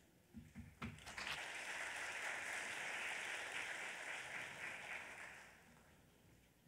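Audience applauding, faint: a few scattered claps in the first second build into steady applause, which fades out about five and a half seconds in.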